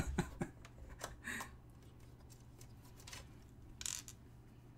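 Faint clicks and taps with a couple of short rustles, from computer parts being handled, over a steady low electrical hum.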